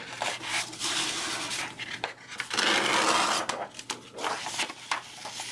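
Sheets of newsprint paper rustling and crackling as they are lifted and turned over. There are two main stretches of rustling in the first three and a half seconds, then lighter handling noises.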